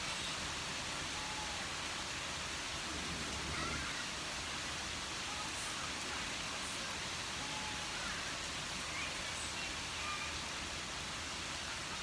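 Steady rain falling in a thunderstorm, an even rushing hiss with no thunderclap.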